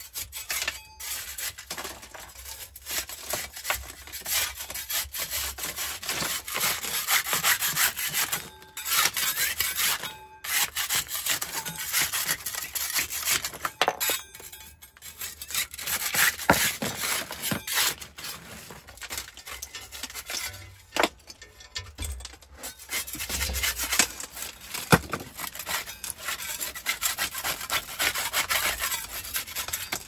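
A metal scraper blade scraping old whitewash and clay plaster off a brick stove in quick, repeated rasping strokes, with a few short pauses.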